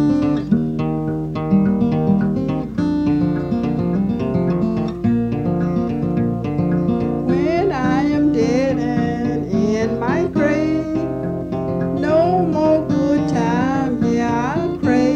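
Song on fingerpicked acoustic guitar, a busy run of plucked notes over a steady bass, with a voice singing from about halfway in.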